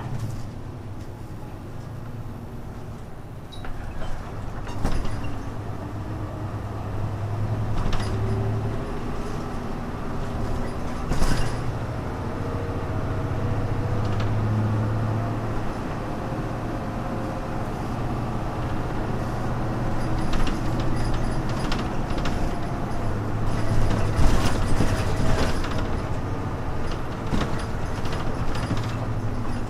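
Hino Blue Ribbon U-HU2MLAA city bus (1991–92 build) heard from inside while under way: a steady, muffled low engine drone, with faint whining tones sliding up and down as it speeds up and slows down. Rattles and knocks from the old body come through, loudest about a third of the way in and near the end. A muffled tone and odd noises like these are typical of buses of this era.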